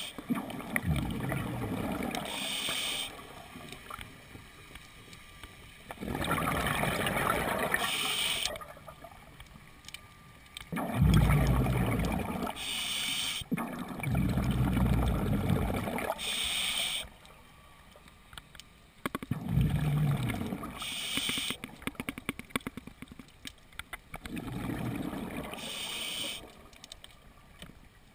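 Scuba diver breathing through a regulator underwater. Each breath is a short hiss on the inhale, then a bubbling rumble of about two seconds on the exhale, about six breaths in a steady rhythm.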